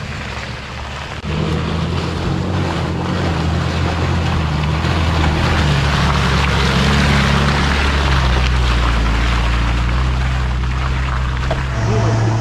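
Off-road vehicle engine running under load, its pitch stepping up about a second in and shifting several more times, with a strong steady rushing noise over it.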